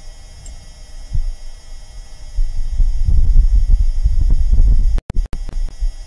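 Low rumbling gusts of Martian wind buffeting a microphone, from NASA's audio recorded on Mars. It is faint at first, with one thump, and grows much louder about two and a half seconds in, with two brief dropouts near the end.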